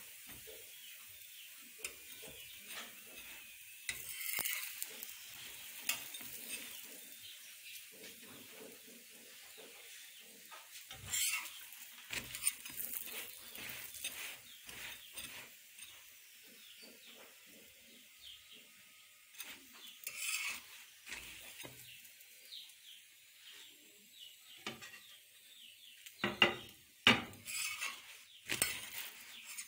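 Mooli paratha frying in ghee on an iron tawa, sizzling steadily, while a metal spatula scrapes and taps against the pan. Near the end come a few louder scrapes and knocks as the spatula works under the paratha and lifts it.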